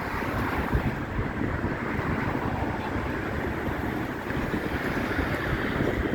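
Strong wind buffeting the microphone: a steady rushing with irregular low gusty thumps.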